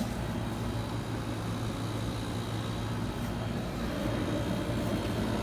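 A 1987 QuietMaster 14,200 BTU window air conditioner running on cooling, heard from its outdoor side: a steady hum from the compressor with the rush of the condenser fan.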